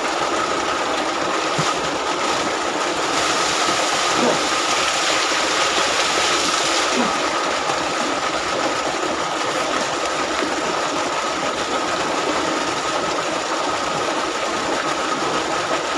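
Mountain water pouring and splashing steadily in a shower, with heavier, hissier splashing from about three to seven seconds in. A thin steady high tone runs underneath.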